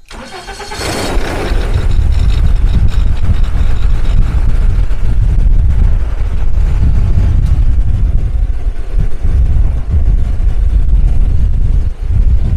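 Viking aircraft engine running steadily with a heavy low rumble. It builds up over the first two seconds and dips briefly near the end.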